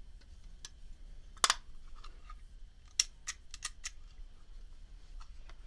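Metal clicks and snaps from handling a vintage Evans cigarette case/lighter combo: one sharp snap with a brief rasp about a second and a half in, then a quick run of five or six clicks about three seconds in, and a few faint clicks near the end.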